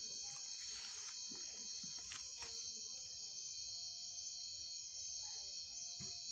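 Steady, high-pitched chirring of night insects, most likely crickets, going on without a break.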